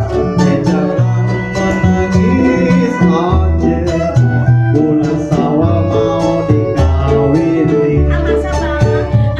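Keroncong ensemble music: quick plucked and strummed strings over a plucked bass line that steps from note to note, with a held melody line above.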